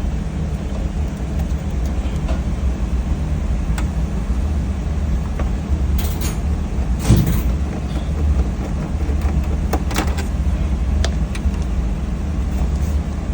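Steady low rumble with scattered clicks and knocks of hand work on a commercial induction cooker while its circuit board is being swapped, with a louder scrape about seven seconds in.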